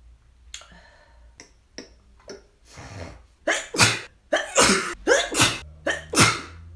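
A person sneezing over and over: a few small sniffs and catches, then from about halfway a rapid string of loud sneezes, one on the heels of the next.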